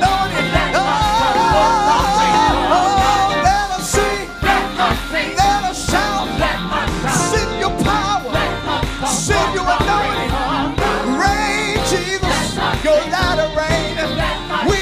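Gospel choir singing with a live band, a wavering held vocal line over a steady drum beat.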